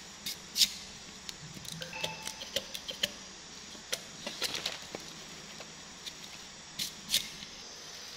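Scattered sharp clicks, taps and light scrapes of knife blades as sugarcane is peeled and a baby macaque handles a knife, with the loudest clicks about half a second in and near seven seconds.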